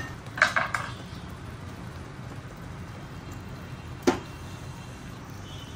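Kitchen stovetop sounds: a couple of quick knocks about half a second in, then the steady low hum of the gas burner under the simmering pan, broken by one sharp click about four seconds in.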